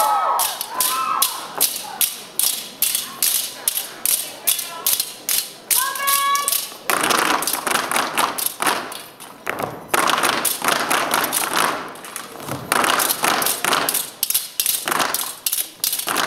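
Step team stepping in unison: rhythmic stomps of boots on a wooden stage with claps and taps of machetes, a sharp beat of knocks several times a second. A few brief whoops from the audience cut in.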